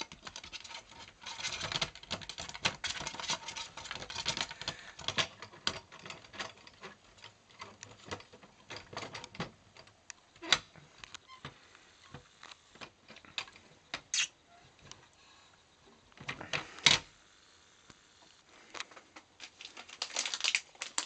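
Clear plastic cat flap clicking and rattling as a kitten paws and pushes at it. There is a dense run of taps in the first few seconds, then scattered single clacks, the loudest about three-quarters of the way through.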